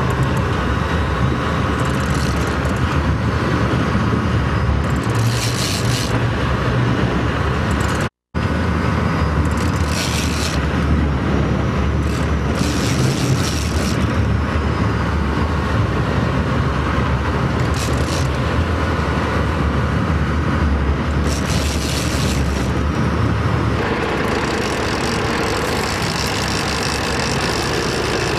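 Sportfishing boat's engines running steadily under wind and water noise, with short bursts of hiss every few seconds. The sound cuts out for an instant about eight seconds in, and near the end the engine note changes to a steadier hum.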